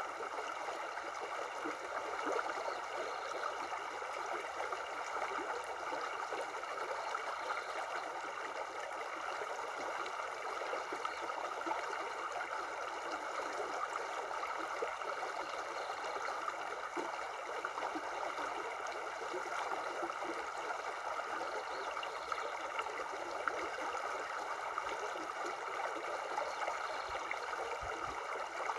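Shallow river flowing over stones, a steady rushing of water.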